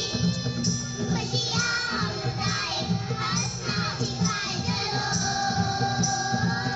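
A group of children singing together over recorded backing music with a steady beat, with some crowd noise from the hall.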